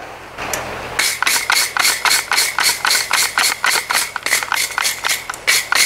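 Hand wire brush scrubbing a red-hot forged steel leaf hook against the anvil face, quick back-and-forth scraping strokes about four to five a second, starting about a second in: a last brushing to clean the scale off the fresh forging.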